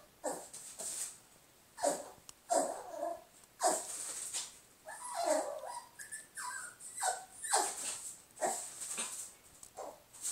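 A small dog barking at its own reflection in a mirror: about a dozen short barks at uneven intervals.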